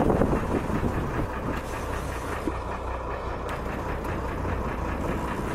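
Fishing boat's engine idling: a steady low hum under a haze of wind and water noise.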